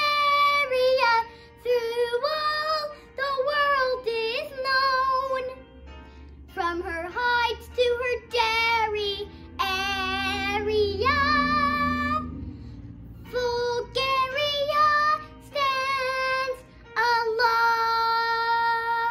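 A young girl singing solo in phrases with short breaks between them, ending on a long held note near the end.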